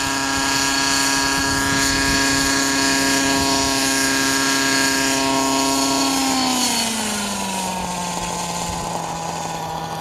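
Radio-control nitro helicopter's glow engine and rotor running at a steady high pitch as it hovers and sets down. About six seconds in, the pitch falls smoothly over a couple of seconds and settles lower as the engine is throttled back to idle after landing.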